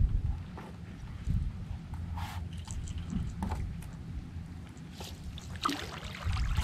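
Water sloshing and lapping against a stand-up paddleboard, with a low wind rumble on the microphone. Near the end comes a short splash and dripping as a crabbing hand line is pulled up out of the water.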